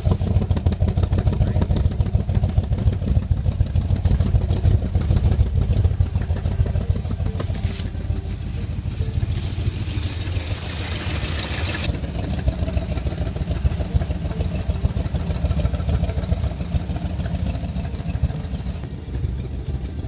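1966 Chevrolet C10 pickup's engine running steadily, a continuous low exhaust rumble. A short hiss comes in about ten seconds in.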